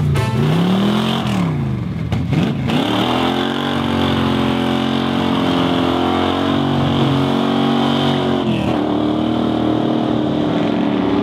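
Muscle car engine revving, then held at steady high revs through a burnout, with its pitch stepping down a little near the end.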